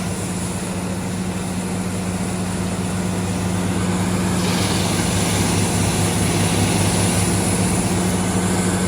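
Heavy diesel machinery running steadily as a wood chipper is fed wood, a constant low engine tone under a rushing noise. The noise grows a little louder and brighter about four and a half seconds in.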